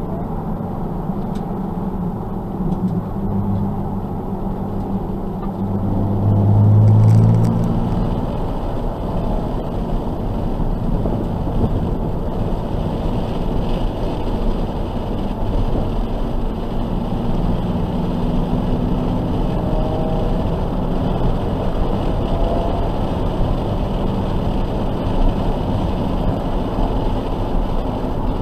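Nissan 370Z's 3.7-litre V6 engine running at speed on a race track, heard from inside the cabin. It gets louder for a second or two about seven seconds in, then settles into a steady drone.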